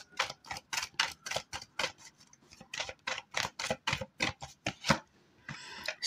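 A deck of tarot cards being shuffled by hand, a quick run of light card clicks about four a second that stops about five seconds in, followed by a short soft rustle of the cards.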